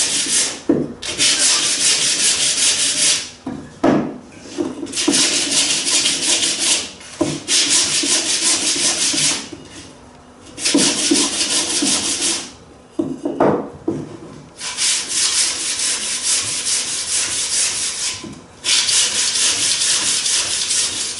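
Hand scuff-sanding of epoxy-coated, painted wooden framing pieces with sandpaper: quick rasping strokes in spells of a few seconds, broken by short pauses.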